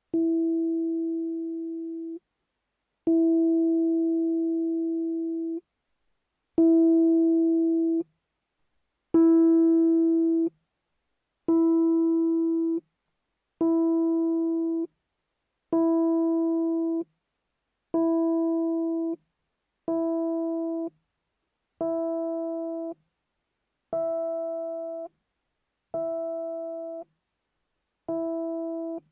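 Fender Rhodes electric piano playing one key through its pickup, struck thirteen times on the same pitch, each note ringing for one to two seconds and then stopping abruptly. Each strike is a different voicing position, with the tine set at a different height and angle to the pickup. The early notes have a pure, mellow tone and the later ones sound brighter, with more overtones.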